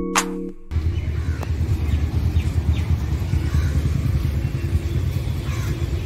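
Keyboard background music that cuts off abruptly under a second in, then an uneven low rumble of wind buffeting the microphone outdoors.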